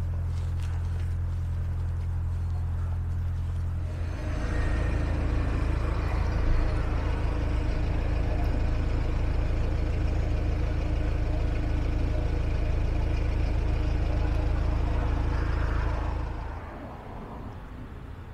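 Narrowboat's diesel engine running steadily while cruising, heard on board. A quieter, steady low hum comes first, the engine grows louder about four seconds in, and it drops away about sixteen seconds in.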